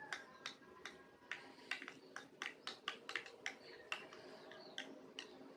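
Stirrer clicking and tapping against a small cup as thick shampoo-and-salt slime is stirred, with irregular sharp ticks about two to three times a second. The mixture is being worked until it thickens into a clump.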